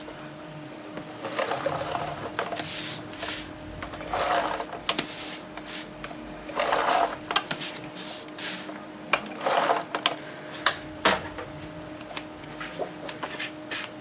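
Cardstock being handled and pressed into place: a series of short rustling, rubbing swishes of paper, with a few light taps and clicks in between.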